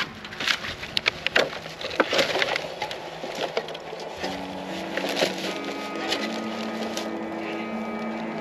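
A pile of weathered dumped trash being scooped up and tossed: irregular knocks, scrapes and clatter. Background music comes in about halfway through.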